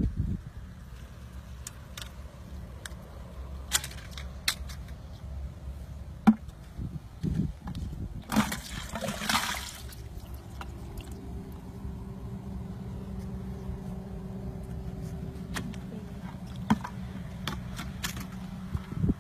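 Water splashing and sloshing, with one longer splash a little before the middle and scattered sharp knocks, over a steady low rumble.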